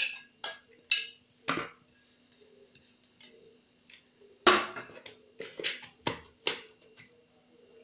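A metal utensil clinking and scraping against a ceramic plate and a plastic bowl: four sharp knocks in the first second and a half, a short lull, then a run of about six knocks as the filling is stirred in the bowl. A faint steady hum lies underneath.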